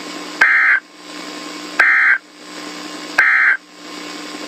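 Emergency Alert System end-of-message data bursts: three short, harsh, buzzy squawks of digital tones about one and a half seconds apart, over a steady static hiss, marking the close of the alert.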